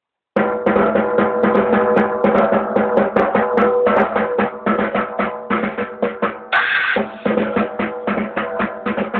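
Drum kit played in fast, continuous strokes on snare and bass drum, starting suddenly about half a second in, with a brief noisier hit about two-thirds of the way through.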